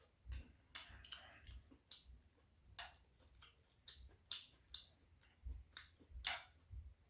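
Close-up chewing: a string of irregular soft mouth clicks and smacks, about a dozen, some with a dull low thump.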